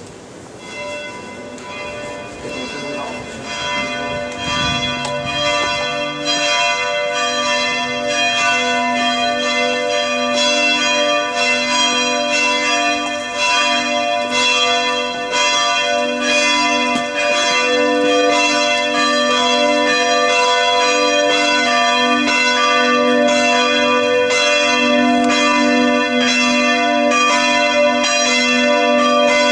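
Several church bells ringing together, struck over and over in a dense, overlapping peal. The ringing swells over the first several seconds, then carries on steadily.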